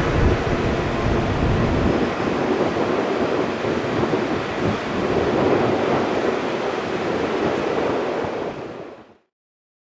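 Jet airliner engine noise, a loud steady rush, heavier in the low end for the first two seconds, then fading and cutting off abruptly to silence about nine seconds in.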